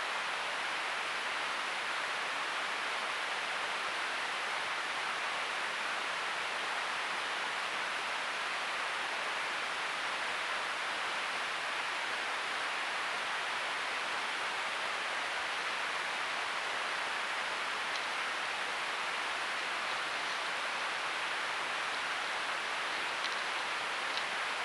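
Steady, even hiss with a few faint ticks near the end.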